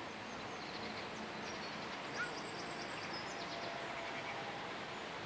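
Outdoor ambience: a steady background hiss with faint, quick, high bird chirps in the middle.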